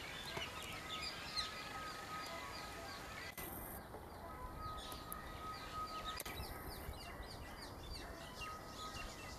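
Small birds chirping over and over in quick, short falling notes, with a thin steady whistling tone that comes and goes.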